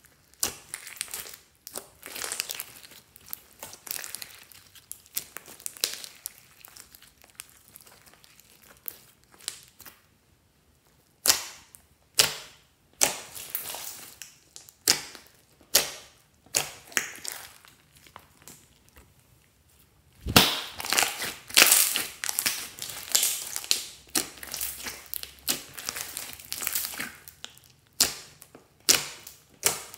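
Hands squishing and kneading slime packed with foam beads and glitter: irregular sticky, crackling squishes and pops. There is a short near-quiet pause about ten seconds in, then a sharp slap about twenty seconds in, followed by louder, busier squishing.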